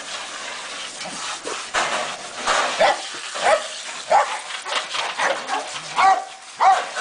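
Small dog giving a string of short, excited barks and yips, roughly one a second from about two seconds in, as it snaps at a garden hose's spray. The hose water hisses and splashes underneath.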